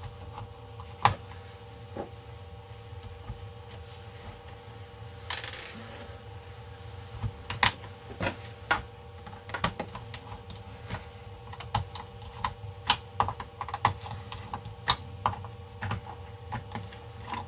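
Irregular light clicks and taps of screws being driven and small parts handled on a ThinkPad 600 laptop's plastic case, sparse at first and coming thicker in the second half, over a steady low hum.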